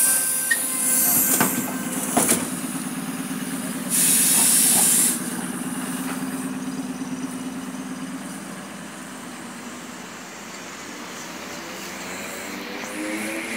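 Electric commuter train at a platform: loud hisses of compressed air, one at the start and another about four seconds in, over a steady low hum. Near the end the traction motors start a rising whine as the train pulls away.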